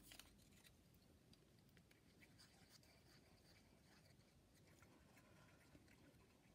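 Near silence: room tone with a few faint ticks of a small paper circle and a glue bottle being handled.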